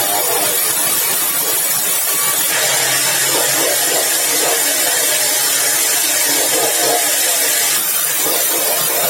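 Sawmill saw cutting yellow balau hardwood timber: a loud, steady machine hiss that grows brighter about two and a half seconds in and eases again near the end.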